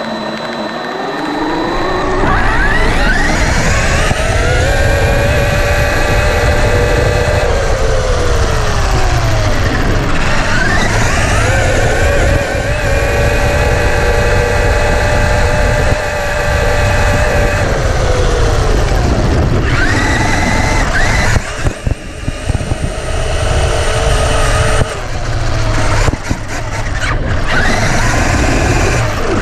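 Electric drive motor of a Traxxas RC truck whining as it speeds up, rising in pitch, holding steady, then falling as it slows. This happens several times, with brief drops near the end, over a steady low rumble.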